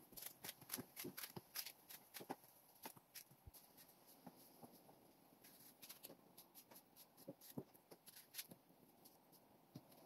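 Faint, irregular clicks and scrapes of a kitchen knife peeling and slicing a mango over a plastic container, more frequent in the first few seconds.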